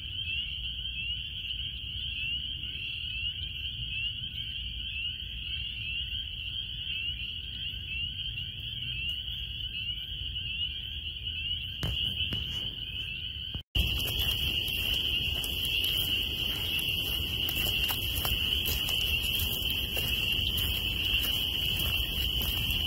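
A chorus of many small frogs calling together from the marsh, a dense high-pitched trilling that holds steady throughout. The sound breaks off for an instant about two-thirds of the way through.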